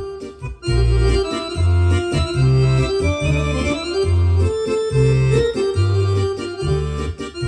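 Bugari Evo digital piano accordion playing a tune: melody and chords over a regular pulse of bass notes, with a brief drop about half a second in before the playing comes back in full.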